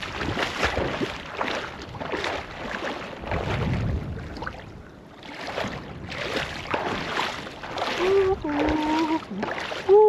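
Shallow sea water sloshing and splashing around a person's legs as he wades, in repeated surges one or two a second. A short voice sound comes near the end.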